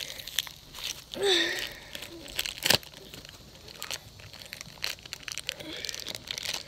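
Plastic packaging crinkling and small plastic toy parts clicking as they are handled, with one sharp click about two and a half seconds in. A short hum of voice comes just after a second in.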